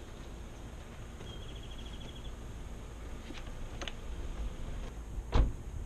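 Low steady outdoor rumble with a few sharp clicks and a louder knock near the end, as the plastic inner door panel of a car door is handled. About a second in, a short high chirping trill.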